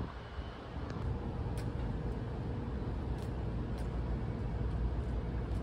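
Road traffic heard on the street outside: a steady low rumble of passing cars.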